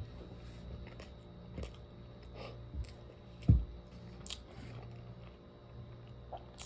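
Close-up eating sounds: biting into and chewing a hummus meatball wrap, with soft crunches and wet mouth sounds, and one dull thump about three and a half seconds in.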